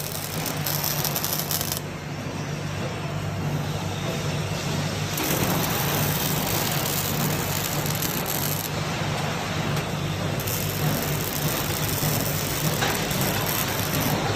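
Robotic arc welding: the steady crackling hiss of the welding arc over a continuous low electrical hum.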